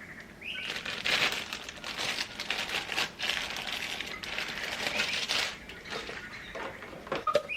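Plastic packaging crinkling and rustling as it is handled, a dense crackle from about half a second in until about five and a half seconds, followed by a few light clicks and knocks.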